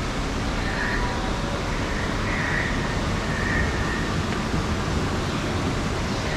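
Outdoor ambience: a steady low rumbling noise, with soft, short high chirping calls now and then over it.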